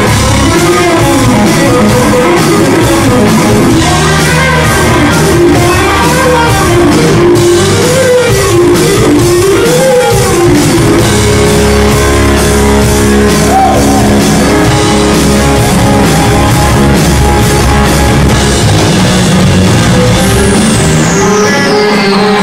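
Live rock band playing loudly: electric guitars, bass, drum kit and keyboards, with a bending melody line in the first half giving way to held chords. Near the end a high tone sweeps steadily downward.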